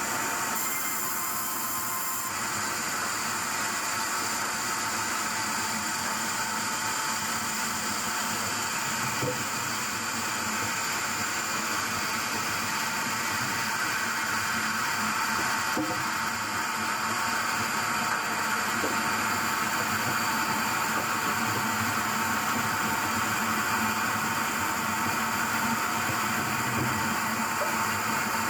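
Sawmill machinery running steadily: a continuous mechanical whine and hiss with several fixed tones, unchanging in level.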